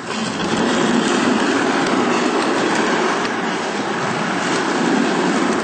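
1/10-scale radio-control car running across a wooden floor under transmitter control: a steady, loud whirr of its motor and drivetrain with tyre noise.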